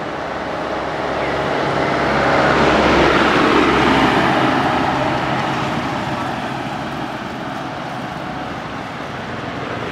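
A motor vehicle passing by on the road, its noise swelling to a peak about three seconds in and then slowly fading away.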